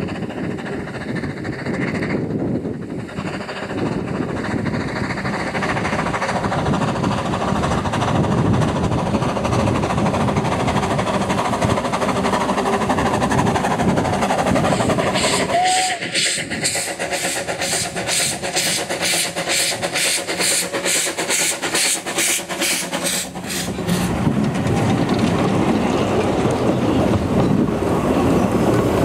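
Narrow-gauge steam locomotives working a passenger train. The running noise is steady, and about halfway through the locomotive's exhaust beats come through clearly as a regular chuffing, about three beats a second for several seconds, before giving way to running noise again.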